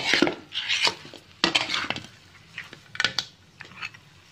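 A wooden spatula scraping and tossing blue crab pieces and glass noodles around a metal wok, in about five uneven strokes, the last near the end.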